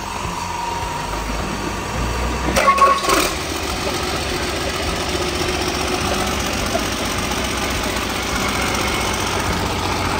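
Freshly assembled Doosan DB58 turbocharged inline-six diesel engine being started for a test run. It cranks, catches with a short loud burst about two and a half seconds in, then settles into a steady idle.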